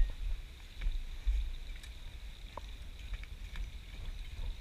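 Wind rumbling on the microphone, gusting about a second in, with a faint steady high hum and a few faint clicks.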